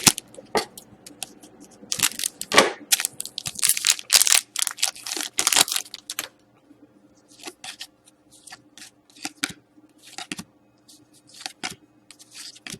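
Trading-card pack wrapper crinkling and tearing, with cards slid and handled. The rustling is densest in the first half, then thins to scattered light rustles and ticks.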